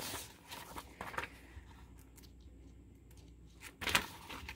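Pages of a Hobonichi Techo planner being flipped by hand: soft paper rustling with a few light ticks. One sharper, louder page flick comes about four seconds in.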